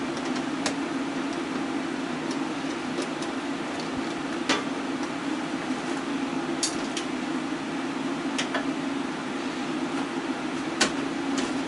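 Electric fan running with a steady hum and rush of air, with scattered light clicks and taps over it, the loudest near the middle and near the end.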